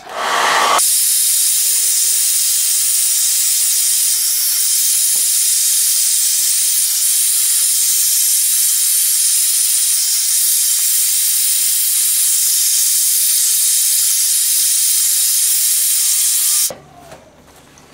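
Hairdryer blowing steadily, a loud, even hiss of rushing air. It is switched on in the first second and cuts off abruptly about a second before the end.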